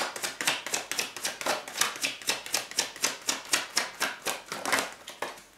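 A deck of tarot cards shuffled by hand: a quick, even run of card slaps and flicks, about five or six a second.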